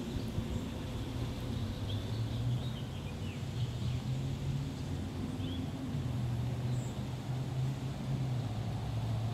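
Steady low rumble of distant road traffic that swells and fades, with a few short bird chirps about two to five seconds in.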